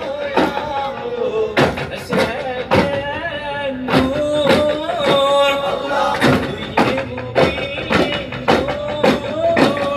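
Daff Muttu performance: a group of men sing a chant in unison while beating daff frame drums, with sharp drum strikes about twice a second.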